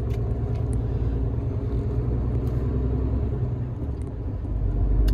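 Low, steady rumble of a Sitrak truck's diesel engine heard from inside the cab, getting a little louder near the end.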